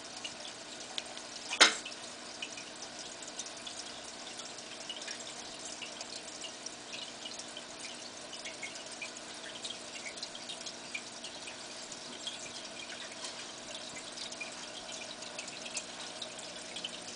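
Aquarium water bubbling and trickling, with many small drips and pops over a steady hum. One sharp click about a second and a half in.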